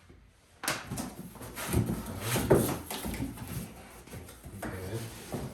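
Plastic bags and wrapping rustling and crinkling as vacuum accessories are handled and unwrapped, with small clicks and knocks of plastic parts.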